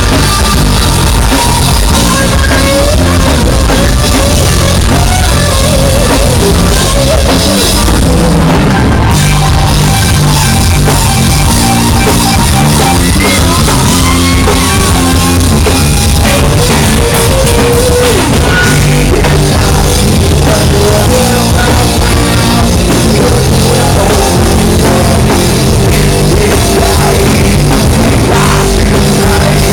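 Live rock band playing loud, drum kit prominent, with singing. The phone recording is overloaded and distorted from being right up near the stage.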